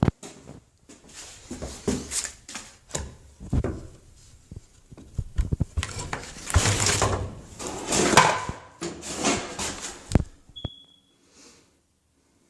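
Irregular knocks, thumps and rustling, then a short high beep about ten and a half seconds in.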